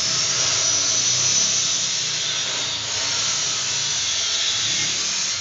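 Metal-workshop noise: a power tool running steadily, giving a continuous hissing whir.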